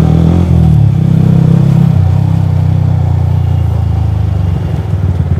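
Motorcycle's single-cylinder engine, a Yamaha R15 V3's, running steadily while riding. Near the end the throttle eases off and the exhaust breaks into rapid, separate beats.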